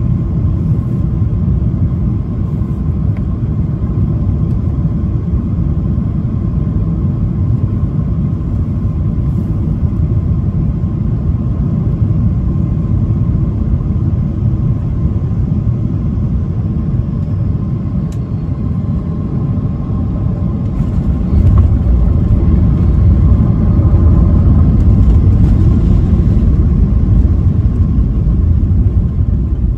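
Cabin noise of a Boeing 737-800 on final approach: a steady rumble of CFM56 jet engines and airflow with a faint steady tone. About two-thirds of the way through, the airliner touches down and the rumble turns louder and deeper as it rolls down the runway with its ground spoilers raised.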